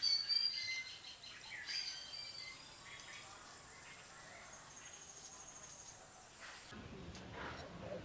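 Faint outdoor ambience: a steady, high-pitched insect drone with a few short bird chirps in the first couple of seconds. The drone cuts off suddenly about seven seconds in.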